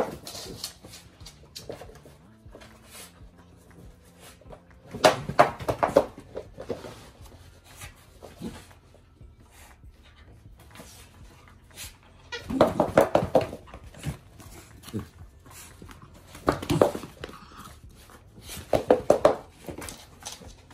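Small dog play-growling in four short bursts while tugging and shaking a plush toy.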